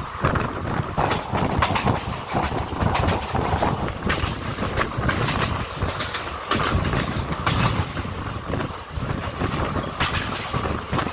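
Indian Railways express passenger coach running at speed, heard at an open barred window: a steady rumble and rush of wheels on the track, with frequent irregular clacks as the wheels pass over the rails.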